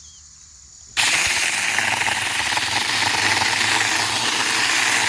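4-inch cordless electric mini chainsaw starting suddenly about a second in and running steadily at full speed as it cuts through a small mulberry stem, with a hissing chain-on-wood sound over a low motor hum.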